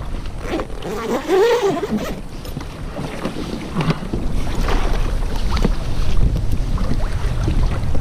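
Wind buffeting the microphone on a kayak at sea, getting stronger about halfway through, with scattered rustles and knocks from handling a large fabric fish bag and the fish. A brief pitched sound that rises and falls comes about a second in.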